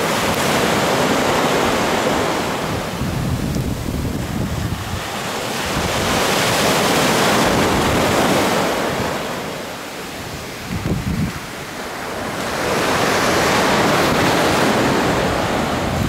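Mediterranean surf washing up a sandy beach: three slow surges of rushing foam that rise and fall about every six to seven seconds. Wind buffets the microphone, most plainly in the lull about eleven seconds in.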